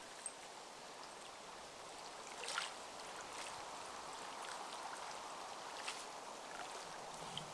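Small waves lapping and washing against a lakeshore, a soft steady wash with one brief louder rush of noise about two and a half seconds in.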